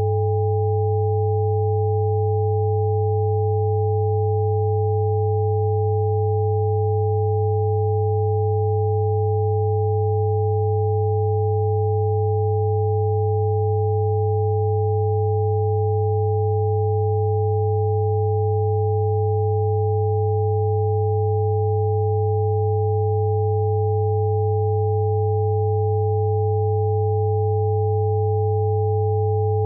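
Synthesized sound-therapy tone: a low hum with two higher pure tones above it, held perfectly steady without a break.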